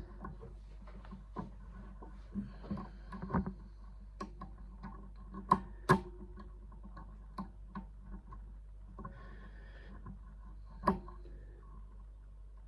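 Lever-lock picks working inside a Chubb seven-lever lock: irregular small metallic clicks and light scrapes, the levers binding and setting as they are lifted. Two sharper clicks come a little after halfway and another near the end.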